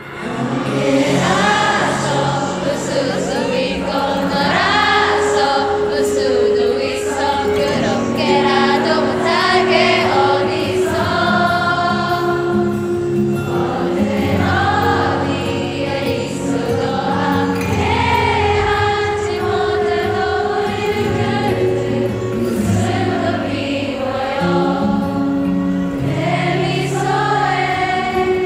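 Several voices singing a slow K-pop song over sustained backing music, with held notes. It fades in at the start.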